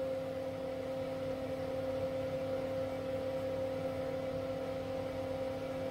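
A steady hum holding two pitches, unchanging throughout.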